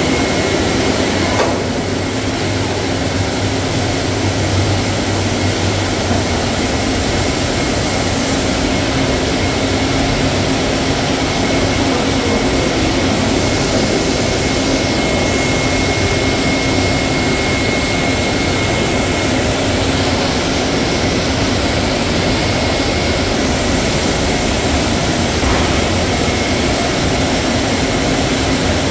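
Water jets spraying steadily onto a stainless-steel chain-conveyor washing line, with a low machine hum underneath. The noise is loud and unbroken.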